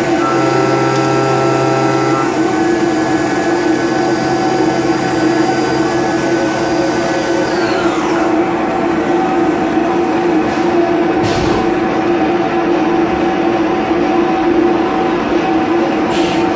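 XYZ 560HD CNC machining centre roughing aluminium flat out with DLC-coated end mills at 10 m/min feed: a steady, loud whine of the spindle and cutter over the hiss of coolant mist. About halfway through, one of the whining tones slides down in pitch, and two brief whooshes come later.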